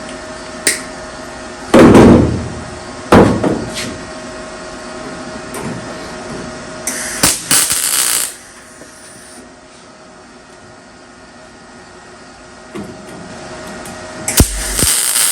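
Metalwork on a car's steel quarter panel: a few loud knocks and clatters of tools and clamps, and two harsh bursts of about a second each, one about halfway through and one near the end, from a MIG welder laying spot welds.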